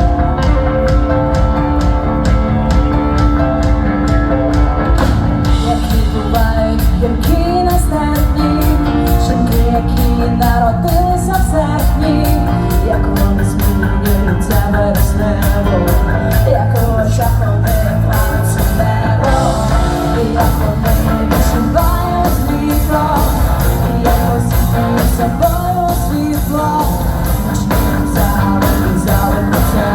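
Rock band playing a song with a steady drum beat, a voice singing over it from about six seconds in.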